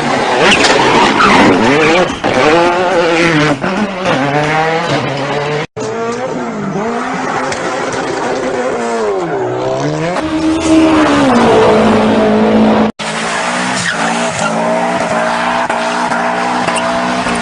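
Rally car engine revving up and down through the gears, with tyres skidding and squealing as it drifts. The sound cuts out abruptly twice, at edits between clips.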